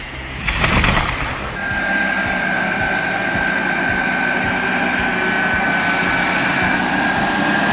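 A large engine running steadily, with a steady high whine over it, after a brief loud burst of noise about half a second in.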